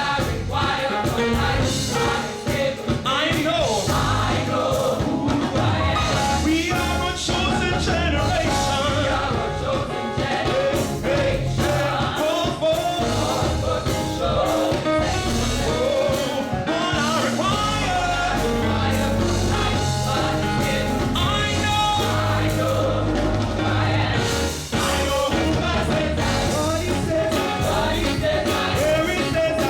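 Live gospel music: a choir or vocal group singing with a band, bass and drums keeping a steady beat.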